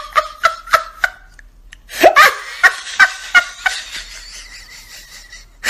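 A person laughing in quick, evenly spaced "ha-ha" pulses. The laughter stops about a second in and starts again with a second run about two seconds in, fading out shortly before the end.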